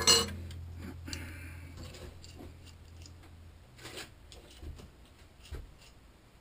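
A machine motor hums steadily and stops about three and a half seconds in. A loud metallic clank comes right at the start, followed by a few light clinks of metal tools and parts being handled.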